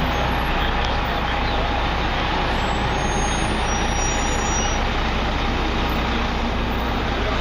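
Steady city street noise: traffic with trucks running, an even rush with no single event standing out.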